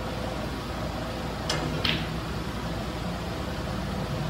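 Steady background hum of a snooker hall, with two short sharp clicks close together about a second and a half in.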